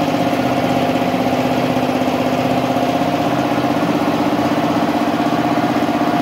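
MultiPro 1 HP twin-cylinder, belt-driven piston air compressor running steadily with a fast, even pulse, pumping up its 100-litre tank, which is not yet full.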